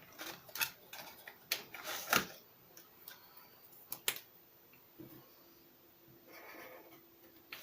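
Sharp plastic clicks of dual-tip markers being handled, with caps pulled off and snapped back on, and a short scratch of a marker tip across paper a little after six seconds in.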